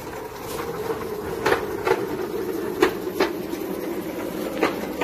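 Wheeled trolley rolling over a concrete path with a steady rumble and several sharp, irregular clunks and rattles.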